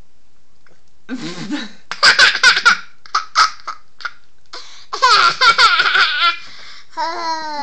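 Toddler laughing hard in repeated bursts of giggles and belly laughs, loudest about two seconds in and again about five seconds in.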